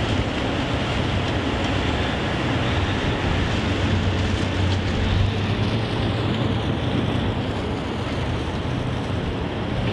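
Taxi boat under way: a steady low engine drone beneath a constant rush of wind and water.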